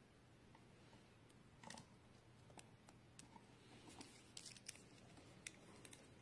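Near silence, with faint scattered clicks and ticks from a mini screwdriver working a tiny screw out of a smart toilet's plastic water distribution valve.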